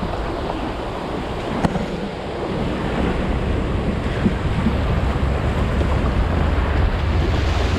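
Rushing runoff water and wind buffeting the microphone, a steady roar with a low rumble that grows stronger about three seconds in.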